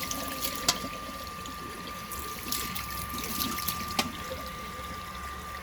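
Kitchen faucet running, water splashing over a dishwasher filter being rinsed, with a couple of light knocks, one about a second in and one near four seconds.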